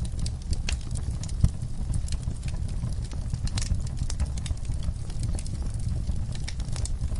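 Campfire burning, its wood crackling and popping in irregular sharp clicks over a steady low rumble, with one louder pop about a second and a half in.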